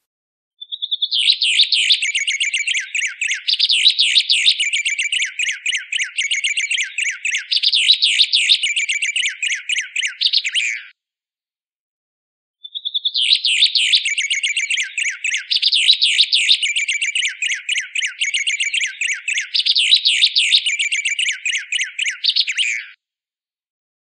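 White Singer (white-plumed honeyeater) song: a long, shrill bout of rapid trilled notes lasting about ten seconds. After a short pause the same bout plays again, as in a looped training recording.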